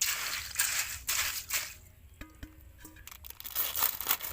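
Ice cubes being handled in a container: several short crunching, scraping bursts over the first two seconds, then a few light clinks.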